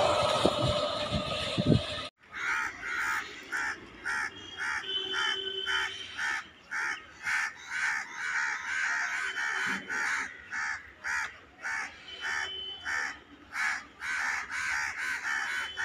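An EMU local train running past, loud, cutting off abruptly about two seconds in. After that, crows cawing over and over, about two caws a second.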